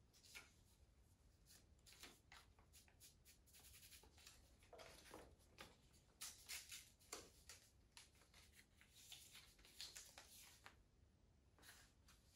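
Faint rustling and scratching of kinesiology tape being handled: paper backing peeled off a strip and the tape pressed and rubbed onto the skin of a lower back. It comes in irregular short scratches, the loudest around six to seven seconds in.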